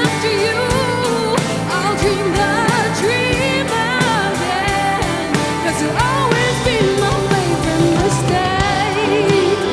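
Live pop band playing a slow song: drums keep a steady beat under a wavering, bending melodic lead line, with no sung lyrics.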